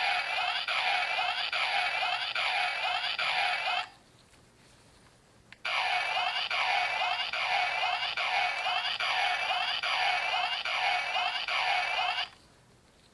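Kamen Rider OOO DX OOO Driver toy belt playing a looping electronic sound effect through its small speaker, about two beats a second. It cuts off about four seconds in, starts again about two seconds later, and stops near the end.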